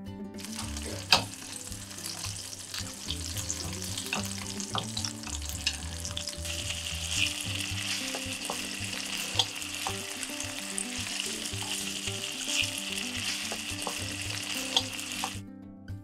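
Chicken thighs sizzling in hot oil in a frying pan as they are turned skin-side up with tongs, with sharp clicks of the tongs against the pan, loudest about a second in and near the end. The sizzle grows brighter about halfway through and cuts off just before the end.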